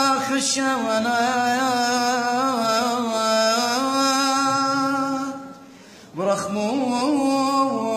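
A priest's solo male voice chanting an Assyrian Church of the East madrasha hymn unaccompanied, holding long, ornamented notes. He breaks off for a breath a little past the middle and comes back in about a second later.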